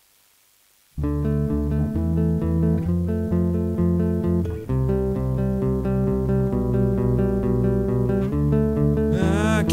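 Rock song intro on guitar and bass guitar, starting abruptly about a second in with a steady pulse of evenly repeated notes. Just before the end the sound fills out, with a bending note and hiss on top.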